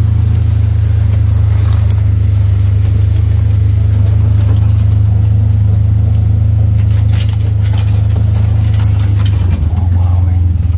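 A vehicle rolling along with its engine running steadily, a constant low drone, and scattered rattles and scrapes that bunch up about seven to nine seconds in.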